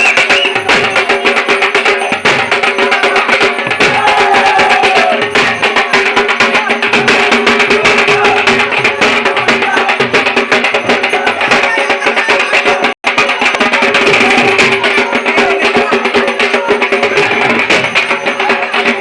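Dhak, the Bengali barrel drum, played with sticks in a fast, continuous rhythm. The sound cuts out for an instant about thirteen seconds in.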